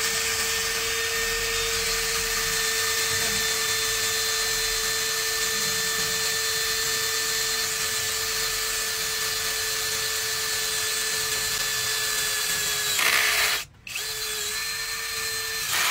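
APR AP17 cordless drill boring through 5 mm iron plate, its motor running at a steady pitch for about thirteen seconds. Near the end it briefly gets louder, stops for a moment, then runs again in a short second burst as the bit breaks through.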